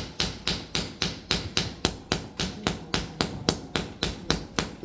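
Quick, even hand slaps on a person's upper back, about four a second: paida slapping therapy over the gaohuang area to bring sha up to the skin.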